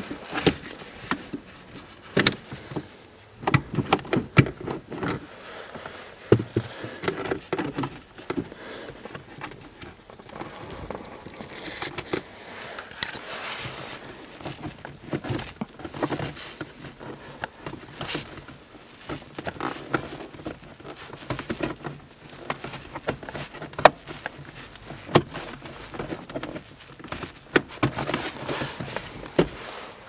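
Hands working at a car's manual gear lever and centre console: scattered clicks, knocks and rustling as the locating pins are pulled out and the shift boot and plastic trim are fitted back in place.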